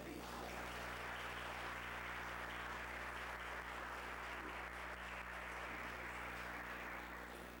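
Audience applauding: the clapping starts abruptly and dies away near the end.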